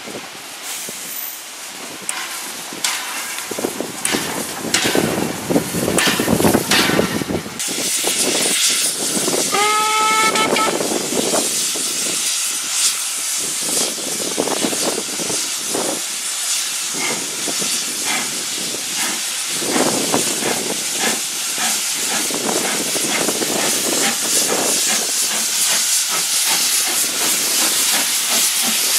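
LSWR O2 Class 0-4-4T steam tank locomotive 'Calbourne': puffs of exhaust in the first few seconds, one short whistle blast about ten seconds in, then a steady hiss of escaping steam as it draws in and stands at the platform.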